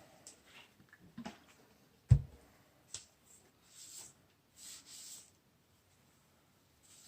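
Handling noises while cleaning vacuum powerhead parts: a single low thump about two seconds in, a click a second later, then short rubbing strokes.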